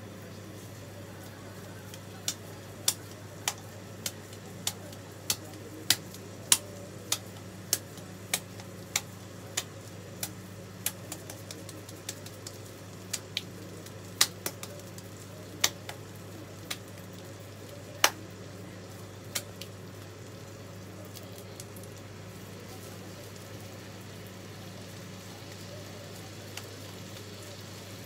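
A ball of ground beef and pork slapped from palm to palm to shape a hamburger patty and press out the air: sharp wet slaps at an even pace, about one every 0.6 seconds, growing sparser past the middle. A steady low hum runs underneath.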